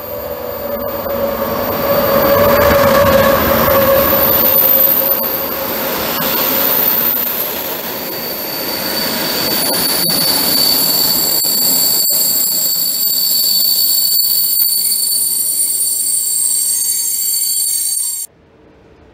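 A passenger train hauled by a České dráhy class 371 electric locomotive rolls past along the platform. It is loudest in the first few seconds as the locomotive goes by, with a low hum, a steady high-pitched wheel squeal and a few sharp clicks as the coaches follow. The sound cuts off suddenly near the end.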